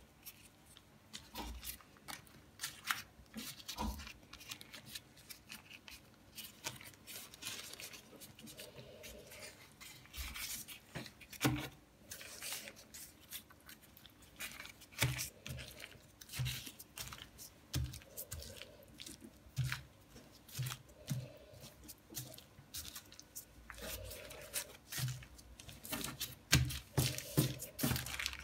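Hands rolling a sheet of puff pastry with a chopped-hazelnut filling into a log: irregular soft rustling, rubbing and light taps of fingers and pastry on the work surface.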